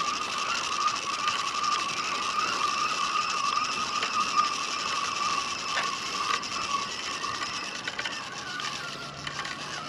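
Penn spinning reel being cranked steadily, its gears giving off an even whirring whine, as a hooked whiting is reeled in.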